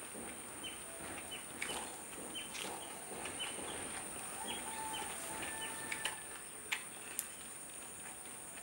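Outdoor ambience: a steady high-pitched insect drone with frequent short bird chirps, and a few sharp clicks, the loudest about two-thirds of the way in.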